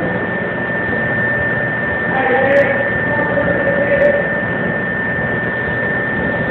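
A loud, steady hum and hiss with a constant high-pitched whine, with faint voices in the background and a couple of small clicks near the middle.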